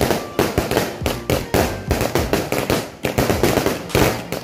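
Fireworks going off in a rapid, irregular series of loud sharp bangs, a few each second.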